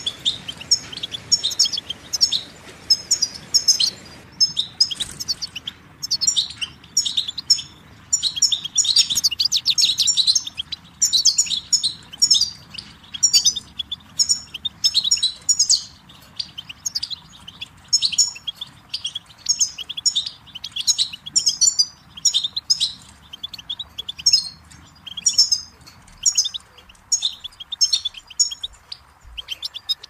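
European goldfinch singing: rapid, twittering runs of high notes, one phrase after another with short gaps between.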